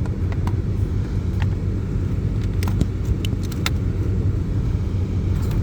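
Scattered sharp clicks and light rattles of a wire and plastic trim being handled under a car's dashboard, over a steady low hum.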